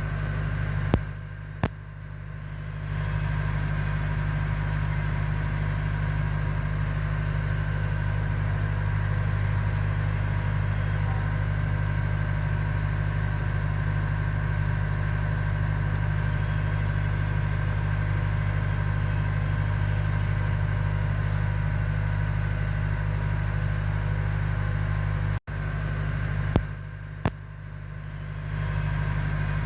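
A steady low rumbling hum, dipping briefly near the start and near the end, with a few faint clicks.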